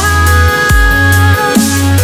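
Loud electronic dance music in a dubstep style, with heavy sustained bass notes and falling pitch sweeps.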